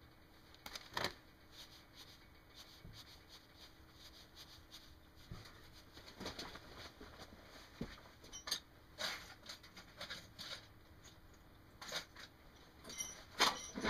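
Scattered light clicks and rustles of wire strippers and small wires being handled, with a cluster of louder clicks near the end.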